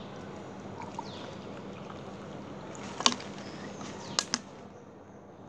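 Water pouring from a plastic bottle into a plastic cup, a soft steady trickle. Sharp plastic clicks and taps: one about three seconds in, and two close together a second later.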